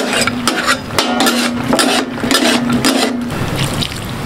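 Flat metal spatula scraping and clacking across a large steel tawa as it pushes raw chicken pieces, in quick repeated strokes. About three seconds in, the scraping gives way to water being poured over the chicken on the griddle.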